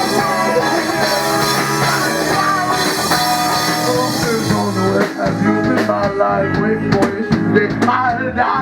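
A live blues-rock band playing: guitar over a drum kit. About five seconds in the cymbal wash drops away, leaving the guitar and separate drum hits.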